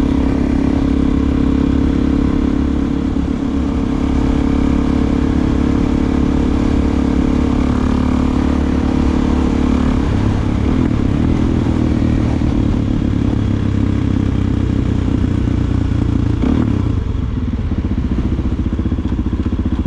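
Suzuki DR-Z400SM's single-cylinder four-stroke engine running through an aftermarket Delkevic exhaust while being ridden, with a steady note. About halfway through the engine note drops lower, and the sound eases off slightly near the end.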